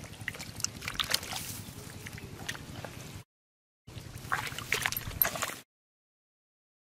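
Hands sloshing and splashing in shallow muddy water, with many short sharp splashes, as they feel through the mud for fish. The sound cuts to dead silence twice, a little past the middle and again near the end.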